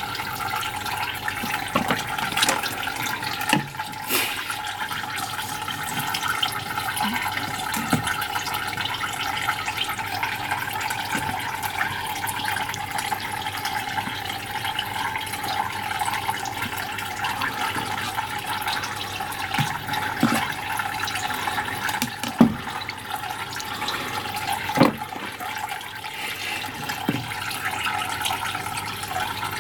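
Tap water running steadily into a sink, with a few sharp knocks and clicks over it, two of them louder in the later part.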